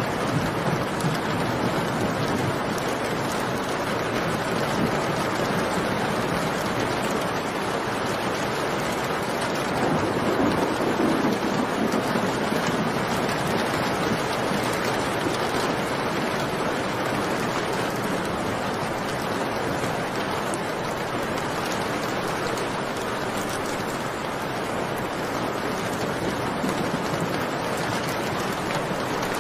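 Steady rain, with a low rumble of thunder swelling and fading about ten seconds in.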